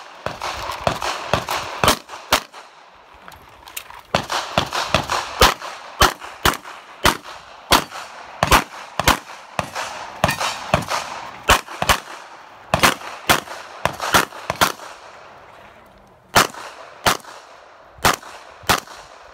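Rapid handgun shots, many in quick pairs and fast strings, with short pauses between strings. This is a competitor shooting a USPSA stage.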